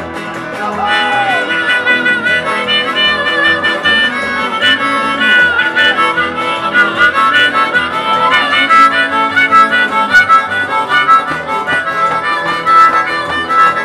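Live country band playing an instrumental break: a harmonica leads with sustained notes over an upright double bass and a guitar.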